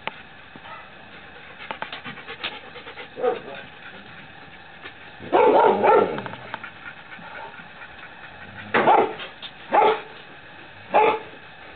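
Dog barking: a short run of barks about five seconds in, then three single barks roughly a second apart near the end.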